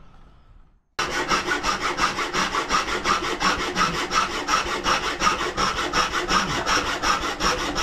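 Hand hacksaw cutting through a strip of aluminium, with quick, even back-and-forth strokes in a steady rhythm. It starts abruptly about a second in.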